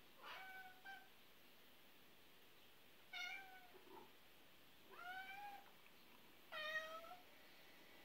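An animal calling four times, short pitched calls of about half a second each, rising briefly and then holding, spaced unevenly over several seconds.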